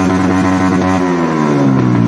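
TVS Apache RTR 160's single-cylinder engine held at high revs through an aftermarket exhaust, a steady note whose pitch eases down slightly near the end.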